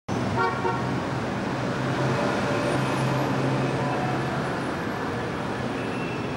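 Busy city street traffic: cars and other motor vehicles running in a steady wash of noise, with a low engine hum for a few seconds and a brief pitched sound about half a second in.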